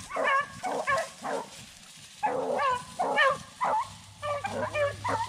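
Rabbit-hunting beagles barking and yelping, a quick string of about a dozen short, high barks with brief gaps between them.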